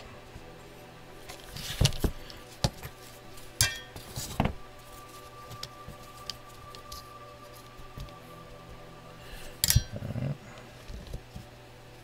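Keyboard parts being handled on a desk: a handful of sharp knocks and light clinks as a metal case frame is moved and a switch plate is fitted onto the PCB, the loudest knock near the end.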